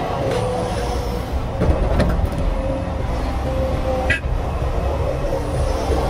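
Komatsu hydraulic excavator's diesel engine running steadily under load as the emptied bucket swings away from the dump truck, with a few knocks in the first couple of seconds and a brief high-pitched squeak about four seconds in.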